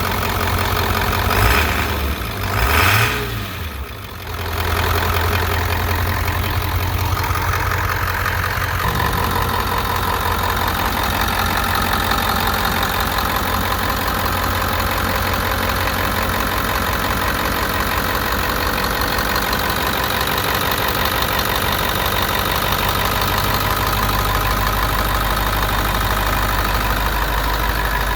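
Ford 7.3 Power Stroke V8 turbo diesel running, with two short revs about one and a half and three seconds in, then settling to a steady idle.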